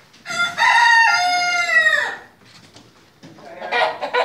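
Rooster crowing once: a loud call of about two seconds that falls away at the end.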